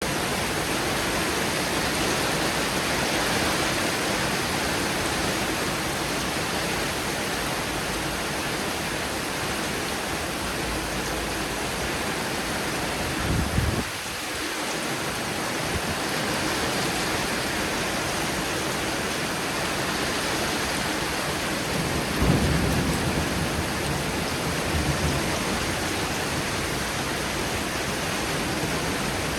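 Heavy rain falling steadily during a thunderstorm, with low rumbles of thunder about 13 seconds in and again about 22 seconds in.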